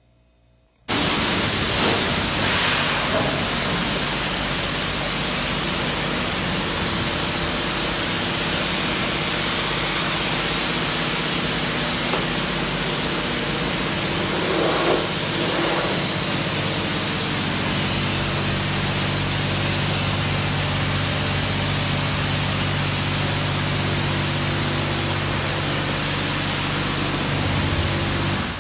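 Steady hiss of a high-pressure spray wand at a self-serve car wash, water spraying onto a car, starting suddenly about a second in, with a steady hum underneath.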